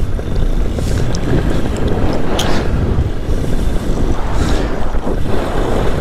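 Heavy wind buffeting the microphone during paramotor flight in turbulent, stormy air, over the running paramotor engine. Gusts surge louder twice, around two and a half and four and a half seconds in.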